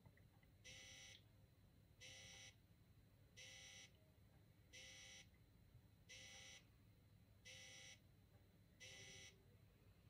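Faint electronic beeps from a Silhouette faradic (EMS) machine running, each about half a second long and evenly repeated about once every 1.4 seconds, seven times.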